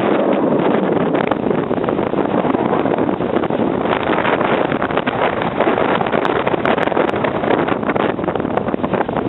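Storm-force wind from the remnants of a hurricane buffeting the microphone: a loud, steady rushing noise that flutters constantly in strength.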